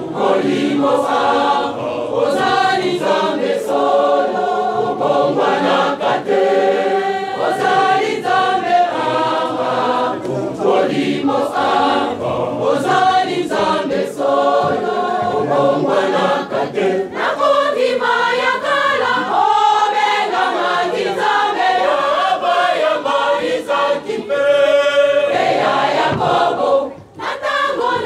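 A large choir singing a hymn in several voices, with a short break about a second before the end.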